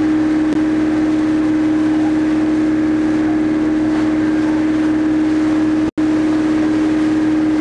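Boat engine running at a steady drone, one unchanging pitch, over the hiss of the churning wake. The sound cuts out for an instant about six seconds in.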